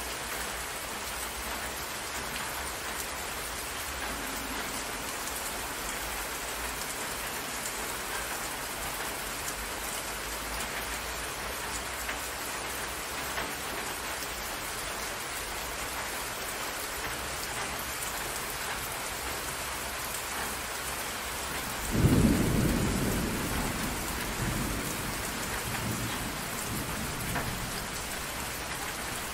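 Steady rain, an even hiss throughout. About two-thirds of the way through, a sudden deep rumble of thunder breaks in and rolls away over several seconds.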